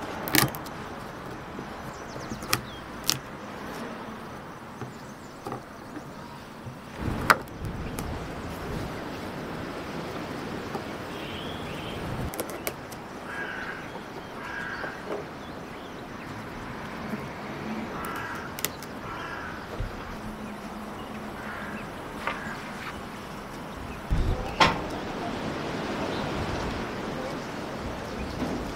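Occasional sharp clicks and knocks, about seven of them with the loudest about a quarter of the way in and again near the end, over a steady background hiss, with a few short faint calls in the middle.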